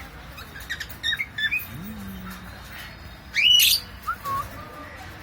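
Cockatiel making a few short chirps, then one loud rising call about three and a half seconds in, followed by a couple of softer chirps.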